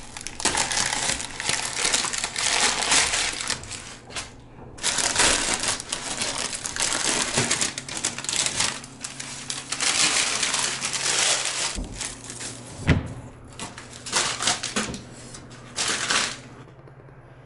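Brown masking paper and blue painter's tape being torn off wall openings and crumpled: long stretches of crackling and tearing with short pauses, and a couple of dull thumps about two-thirds of the way through.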